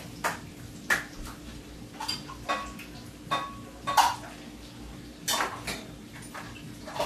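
Kitchen dishes and utensils clinking and knocking against each other: a string of separate sharp clinks and clunks, a few ringing briefly.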